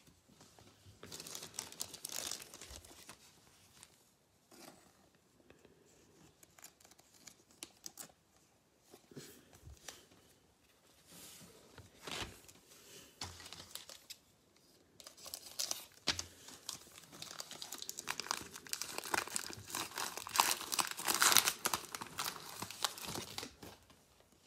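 A basketball trading card pack being torn open, its plastic wrapper tearing and crinkling. It comes in short spurts about a second in, then a long, louder stretch of dense crinkling over the second half.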